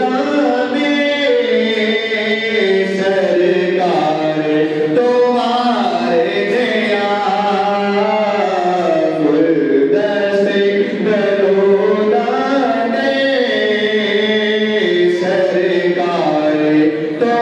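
Man singing a Punjabi naat, a devotional song, in long held notes that glide up and down.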